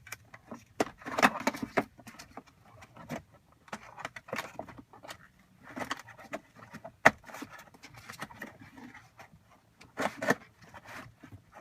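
Metal LATCH connectors of a GB Asana35 infant car seat base clinking and rattling as they are pulled free and handled, with scattered clicks and knocks. One sharp click about seven seconds in is the loudest.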